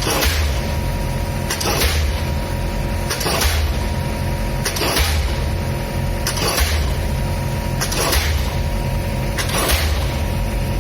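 Pile-driving machine hammering a pile into the ground, a heavy blow about every second and a half over the steady drone of its engine.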